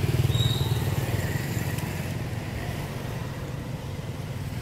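Small motorcycle engine running steadily, a little louder in the first second and then slowly fading.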